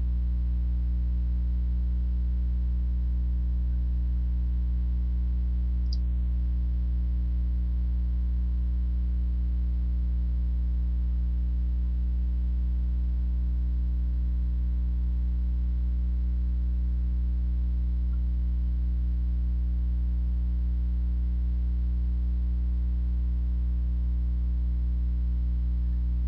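Steady electrical mains hum with a stack of overtones, unchanging throughout, and a single brief click about six seconds in.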